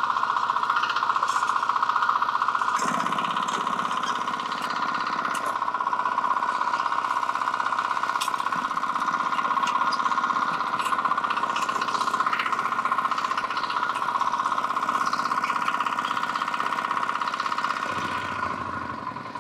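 Two-wheel walking tractor engine running steadily with a fast knocking beat as it pulls a plough through potato rows to lift the potatoes. It drops back near the end.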